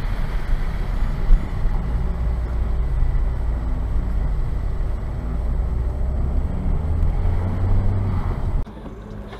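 A car driving, heard through a dash camera: a steady engine and road rumble. The engine note rises over the last second or so. The sound then cuts off abruptly at an edit, leaving quieter road noise.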